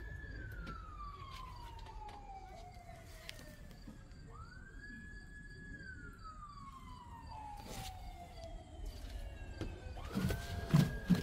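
A siren wailing: each cycle rises quickly to a high pitch, holds for about a second and a half, then slides slowly down over about four seconds. It goes round three times, the last starting near the end, when a few loud knocks are also heard.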